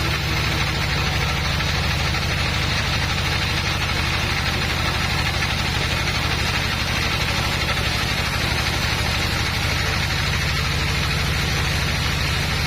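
Engine of a bandsaw sawmill running steadily, with a fast even pulsing hum and a hiss above it.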